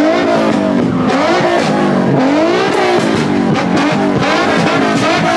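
Car engines revving repeatedly, loud, the pitch sweeping up and falling back again and again.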